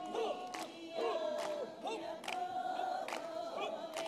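Ainu ceremonial chanting by a group of voices, one held steady note with wavering voices over it, and a sharp beat struck a little more than once a second.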